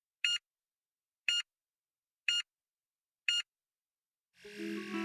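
Short electronic beeps, evenly spaced at one a second, four in all. About four seconds in, a burst of hiss comes up and music begins.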